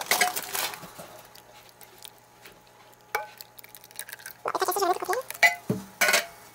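Wooden spoon and spatula stirring chunky tomato sauce and diced vegetables in a slow cooker's crock, making wet squelching and knocking sounds in short bursts.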